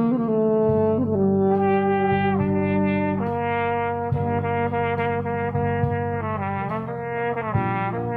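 Trumpet playing a slow melody of long held notes over a steady backing accompaniment.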